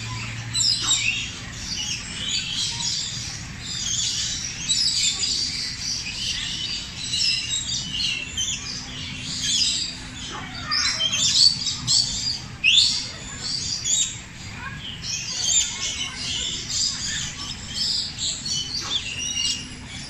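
A flock of flamingos calling: a dense, overlapping chorus of high chirps and short falling calls.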